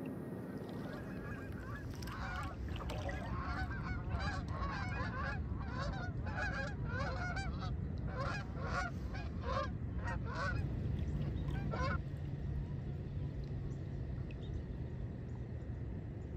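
A flock of geese honking in flight overhead, many overlapping calls that stop about twelve seconds in.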